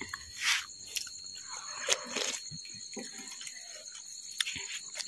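Crickets chirping steadily, with a few short rushing or splashing sounds about half a second in and around two seconds, and some light clicks of serving ware.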